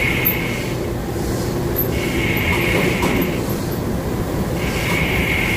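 Heavy factory machinery running with a steady, loud mechanical rumble. A brighter, higher hiss swells and fades three times, roughly every two and a half to three seconds.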